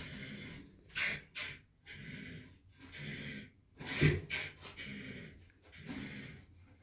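Repeated snore-like breathy pulses, about one a second, from an unseen animal beneath a bathtub, with a few sharp knocks among them.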